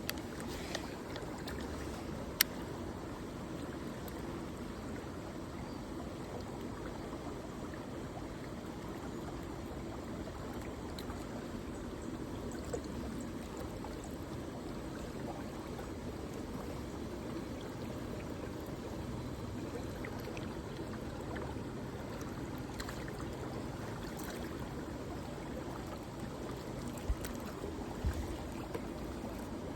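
Steady flow of a stream's water. A single sharp click comes about two seconds in, and a couple of dull knocks come near the end.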